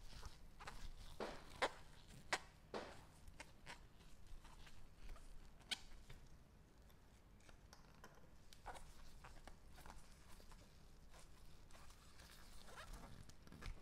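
Faint, scattered light clicks and taps of small objects being handled, the sharpest few in the first three seconds.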